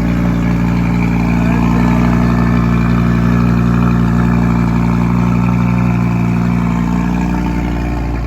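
Audi R8's V10 engine running steadily at a fast idle just after a cold start, easing slightly near the end.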